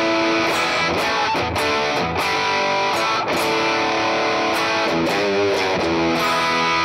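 Electric guitar played through a Valeton GP200 multi-effects unit on a heavy, saturated high-gain drive preset, with held notes and chords that change every second or so.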